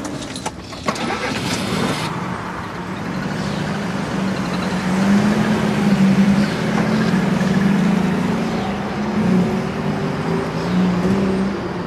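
Ambulance van's engine running as it drives off, its pitch rising and wavering with speed, with a few sharp clicks in the first two seconds.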